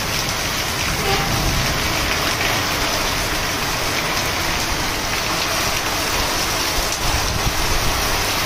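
Heavy rain pouring down on a road in strong wind: a steady, even hiss with a low rumble underneath.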